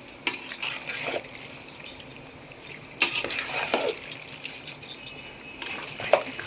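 Spoon stirring pasta in sauce in a pan, with scattered clinks and scrapes of the spoon against the pan in a few short spells: near the start, around the middle and near the end.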